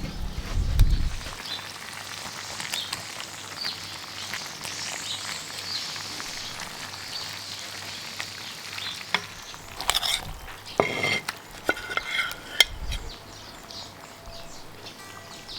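Food sizzling and crackling in a hot cast-iron potjie. A few sharp knocks and clatters of a utensil against the pot come about two-thirds of the way through.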